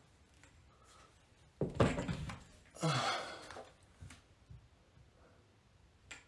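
A man breathing out hard twice, about a second apart, from the effort of a cable exercise set. A few faint clicks follow.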